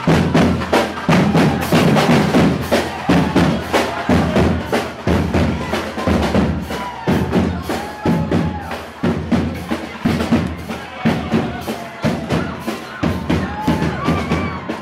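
Brass band playing loud, up-tempo music: sousaphone, trumpets and trombone over a fast, steady beat of drums and crash cymbals, with long held brass notes about seven seconds in and again near the end.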